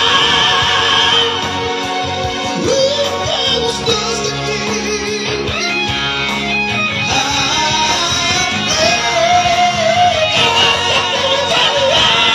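Live male vocal trio singing in parts through microphones and a PA over instrumental backing; one voice holds a long wavering note about nine seconds in.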